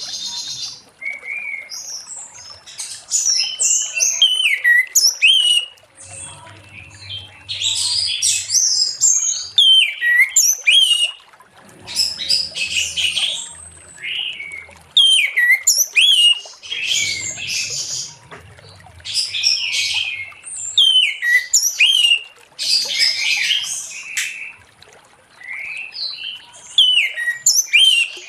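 Orange-headed thrush singing a long, varied song in full voice: quick whistled phrases with sliding notes and rapid trills, in bursts of a second or two separated by short pauses.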